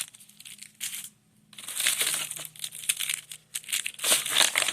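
Packs of firecrackers being handled and shuffled, their paper wrappers crinkling and rustling in quick runs, with a short pause a little after a second in.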